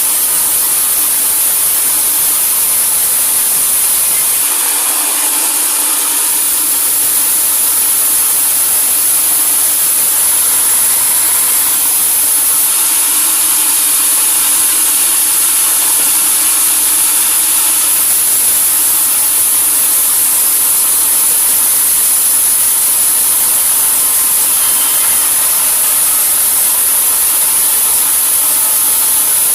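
Sawmill saw running and cutting timber: a loud, steady, high hissing whine that holds without a break.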